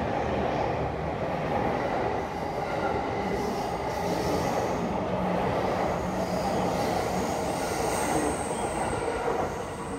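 Commuter electric train rolling along the platform: a steady loud rumble of wheels on rail, with a faint high wheel squeal over it.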